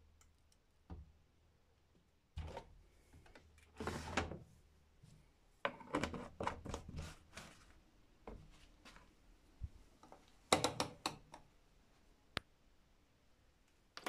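Plastic knocks, clicks and short clatters from handling a liquid detergent bottle and pushing the plastic dispenser drawer of a Luxor WM 1042 washing machine shut. The sounds come irregularly, with a sharp click near the end.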